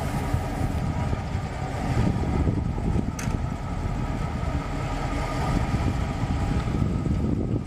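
EMD GP38-2 diesel locomotive's 16-cylinder two-stroke engine running with a steady low rumble and a thin steady whine as the unit moves off through the yard. A single sharp click about three seconds in.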